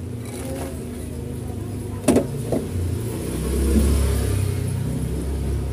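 Low rumble of a motor vehicle engine going by, swelling and fading in the middle, with a short knock about two seconds in.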